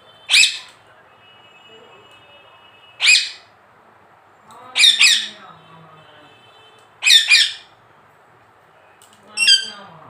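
Rose-ringed parakeet giving short, harsh squawks, about one every two seconds, five in all, two of them doubled.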